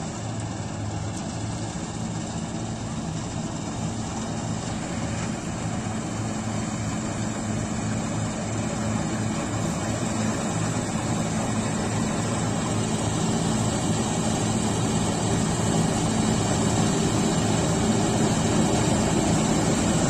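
Preet 987 combine harvester running as it cuts wheat, a steady engine hum under the rush of its cutter and threshing machinery, growing steadily louder as the machine drives up close.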